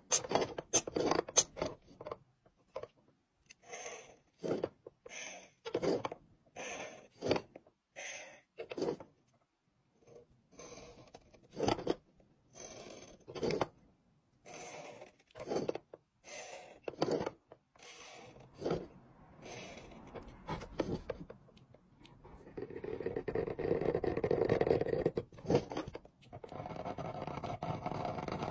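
Hand engraving knife scraping across the face of a block as it scores straight lines, in short separate strokes of about one a second. Near the end the strokes run together into longer, louder continuous scraping.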